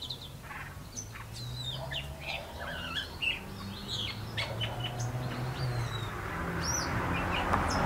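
Several small birds chirping with short, high calls scattered throughout, over a low steady hum. A soft rushing noise swells near the end.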